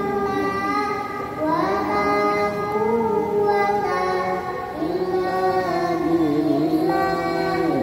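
A boy's solo voice chanting a pujian, the devotional praise sung before the obligatory Islamic prayer, into a microphone. He sings long held notes with slow melodic bends, in phrases broken by short breaths.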